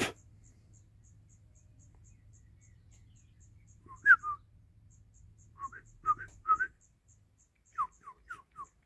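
A series of short whistled notes, each a quick glide up or down, in small groups of two or three. They start about four seconds in, after a single click at the very start.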